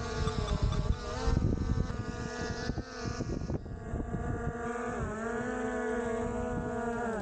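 Skydio 2 quadcopter's propellers whining steadily as it hovers close by, the pitch dipping and recovering a few times, with wind rumbling on the microphone. At the very end the motors wind down quickly as the drone is brought in to land on a hand.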